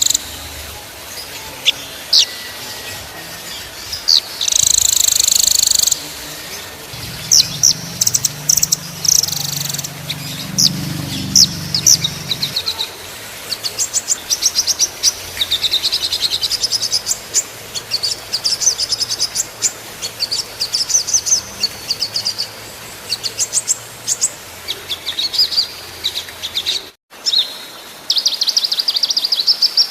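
Small songbirds singing loud, high, rapid chirps and trills in tight, fast-repeating rolls, the dense 'tembakan' phrases used in masteran recordings to tutor cage songbirds. The song breaks off briefly about 27 seconds in.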